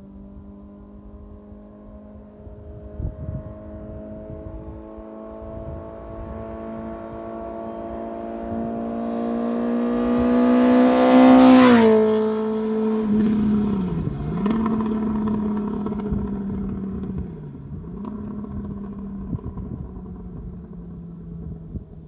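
2017 Honda CBR1000RR Fireblade's inline-four, breathing through an aftermarket Racefit exhaust, on a drive-by. The engine note climbs steadily as the bike approaches, is loudest as it passes about twelve seconds in with a sudden drop in pitch, then falls away with a couple of brief dips in note as the bike rides off.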